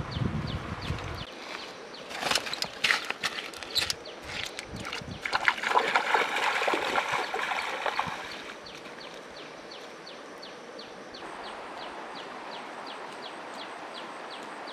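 Bare feet splashing and wading through a shallow stream: separate splashes from about two seconds in, then a denser stretch of wading that stops about eight seconds in, leaving a soft steady trickle of water. A high short chirp repeats about three times a second throughout.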